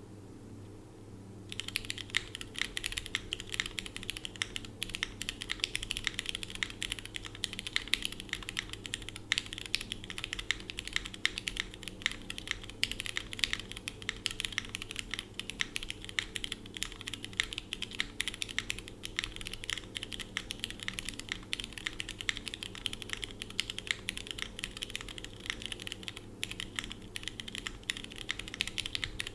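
Fast, continuous typing on a DM mechanical keyboard fitted with lubed and filmed Cherry MX Red linear switches, an aluminium plate with no foam, and Linworks Green keycaps. The typing starts about a second and a half in.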